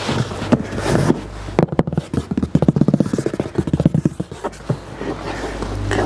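Cardboard box of a Dyson hair dryer handled close to the microphone: rubbing and scraping of the cardboard, with a fast run of scratchy strokes in the middle.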